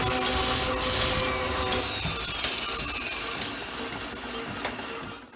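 Steady mechanical whirring of a machine running, with several steady hums under a high whine and a few light clicks. Faint tones fall in pitch through the middle, the sound eases off a little, and it cuts off abruptly near the end.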